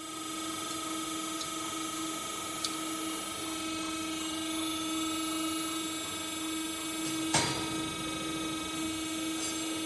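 CNC aluminium profile bending machine running as it rolls a profile into a curve: a steady motor hum with a constant higher whine over it. There is a light click a few seconds in and a sharper clack about seven seconds in.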